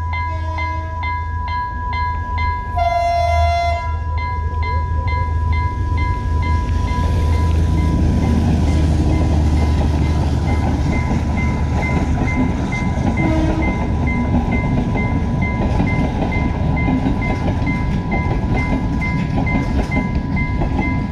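A level crossing warning bell ringing about twice a second over a steady tone, while a diesel train sounds its horn twice near the start, a short blast then a longer one. The train then passes close by, its wheels rumbling loudly on the rails.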